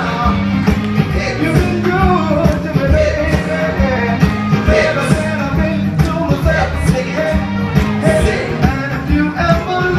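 A live band playing upbeat rock and roll with a singer, a steady bass line and regular drum beat under the vocal.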